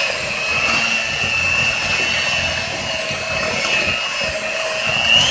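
Electric hand mixer running, its beaters creaming softened cream cheese with sugar and flour in a bowl: a steady motor whine that rises slightly in pitch near the end.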